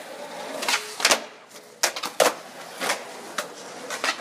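Skateboards clacking on concrete: a string of sharp knocks at uneven intervals, several a second at times.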